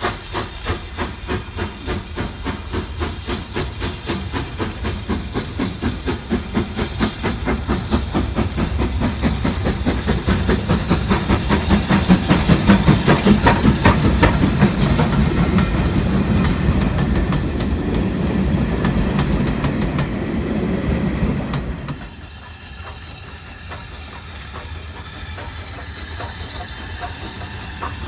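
BR Standard Class 4 2-6-4 tank engine 80151 pulling away under steam: regular exhaust chuffs that quicken and grow louder as it passes close, with the coaches' wheels rolling by. About two-thirds of the way in the sound drops suddenly to a quieter, more distant chuffing of the train running on.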